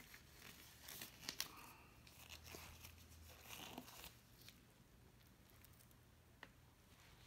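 Mostly quiet, with faint rustling and a few soft clicks as a gloved hand grips and tilts a wet paint-poured canvas.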